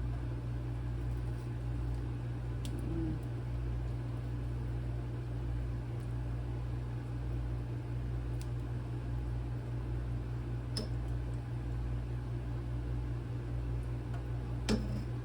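A steady low mechanical hum, with a few faint scattered clicks from a knife working on a chicken gizzard as its tough lining is cut and peeled.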